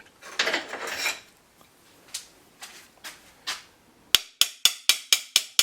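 Series of sharp hammer taps, about four a second, knocking a stuck valve cover loose on an LS 6.0 V8, starting after a few seconds of light clicks and handling.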